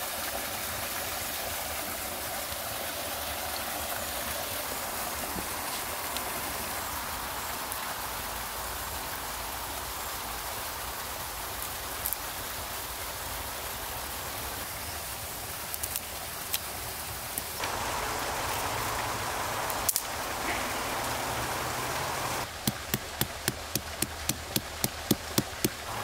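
Steady rushing of a small woodland stream, with a few scattered clicks of sticks being handled. Near the end, a quick regular run of sharp taps, about four a second, as a green stick is worked against a log.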